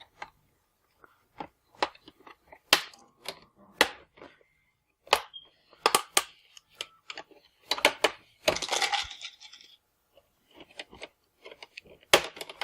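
Plastic laptop screen bezel being pried off: a series of sharp clicks and snaps as its clips let go, with a longer crackling stretch about two-thirds of the way through.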